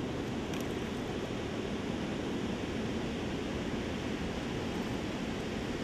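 Steady rushing noise of wind and rippling lake water, with no pitch or rhythm.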